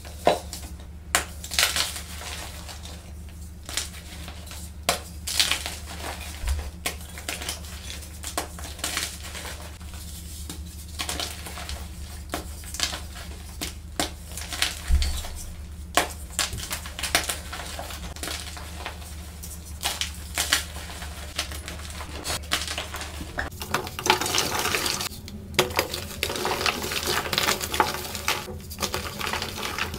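Blocks of gym chalk crushed and crumbled by hand: irregular sharp crunches and crackles as the chalk breaks into powder, turning into denser, more continuous crunching near the end.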